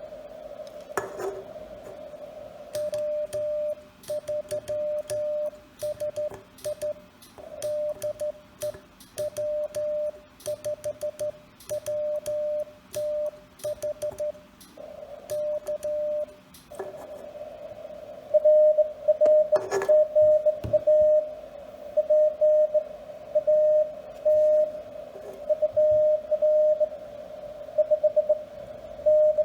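Morse code sent with a homemade beer-can telegraph key: a steady mid-pitched beep keyed in dots and dashes, with the key's contacts clicking at each stroke. After a short gap about 17 seconds in, louder dot-and-dash beeps at the same pitch without the clicks come through the radio receiver over a faint hiss: the other station answering.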